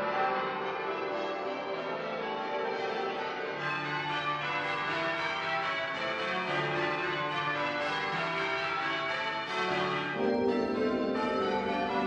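Church tower bells rung on ropes together with a large set of handbells, a combined piece for three sets of tower bells and about 30 handbells. Many overlapping bell notes sound continuously, with deeper bell notes joining about four seconds in and falling away near ten seconds.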